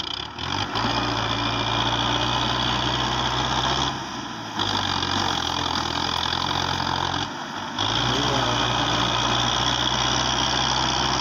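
Belarus tractor's diesel engine pulling a loaded trolley, running with a steady low drone while it works hard under the load. The drone drops away abruptly twice for about half a second, about four and seven and a half seconds in.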